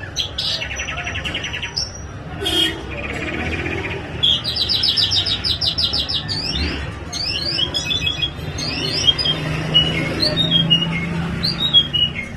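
A songbird singing a varied song: fast rattling trills repeated several times, then quick descending whistled notes repeated near the end.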